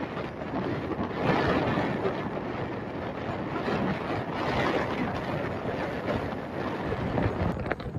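Wind rushing over the microphone with road noise from a moving vehicle, a steady rush that swells and eases.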